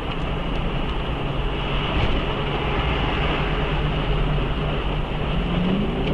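Car driving at highway speed: steady road and engine noise. Near the end an engine note rises in pitch.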